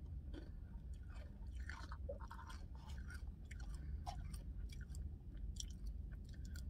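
Close-up eating sounds of a McFlurry with chocolate-covered pretzel pieces: irregular chewing with small mouth clicks and smacks, over a steady low hum.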